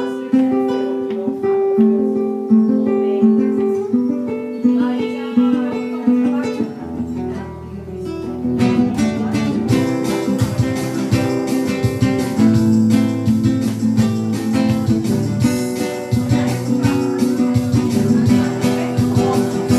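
Acoustic guitar intro in a bar-style pop-rock cover, first picked single notes, then fuller strummed chords with a bass line joining about halfway through.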